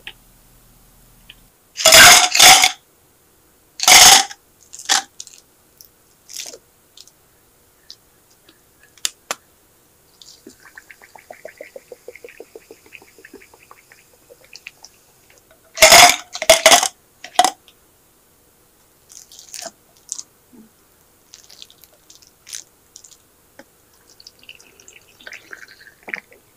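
Cold drinks being made in plastic bottles: carbonated soda water poured in with fizzing, and later tea poured in. Between them come two clusters of very loud short bursts of noise.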